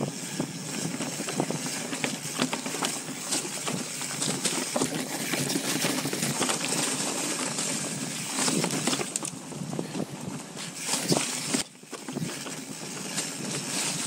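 Mountain bike riding down a dirt trail: steady tyre and trail noise with frequent clicks and rattles from the bike, dropping off briefly near the end.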